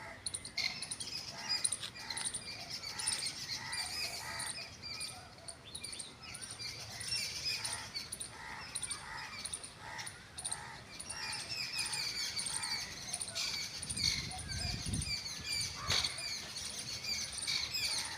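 A chorus of birds: dense high chirping throughout, with a run of repeated lower calls from titar (francolin). A brief low rumble and a sharp click come near the end.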